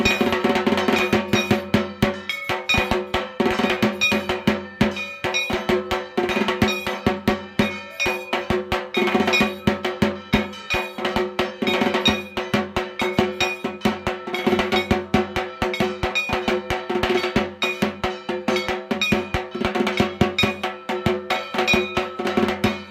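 Puja bells and percussion: fast, continuous metallic clanging over a steady ringing tone, kept up at an even rhythm without a break.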